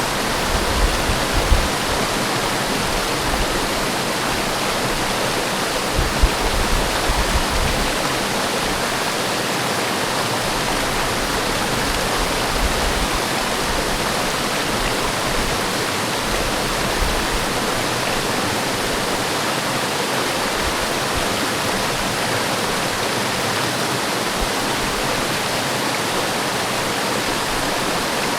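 Forest waterfall pouring steadily, a dense, even rush of falling water. There are brief low rumbles about a second in and again around six seconds in.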